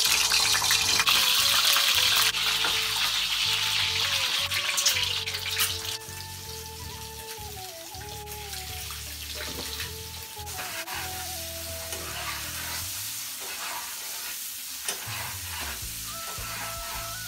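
Peeled hard-boiled eggs frying in hot oil in a nonstick pan: a loud sizzle as they go in, easing to a quieter steady sizzle about six seconds in, with clicks and scrapes of a spatula turning them.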